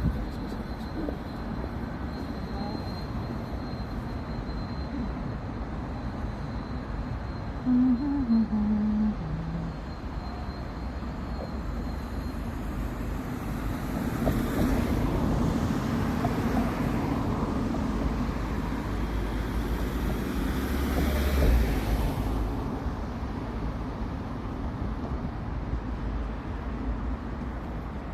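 Street traffic: steady traffic noise with one vehicle passing close, building up from about thirteen seconds in, loudest just past twenty seconds, then falling away. A brief low tone that steps down in pitch sounds about eight seconds in.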